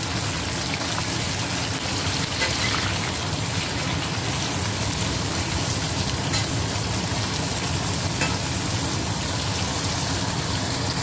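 Tempeh strips and red chillies sizzling steadily in hot oil in a stainless-steel wok, stirred with a metal spatula that now and then ticks against the pan.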